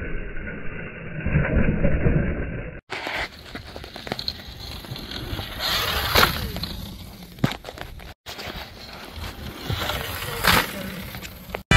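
Talaria electric dirt bike jumping a dirt kicker in three short clips: wind rush and tyre noise on dirt with no engine note, and a sharp knock of the bike landing about six seconds in and again near ten and a half seconds.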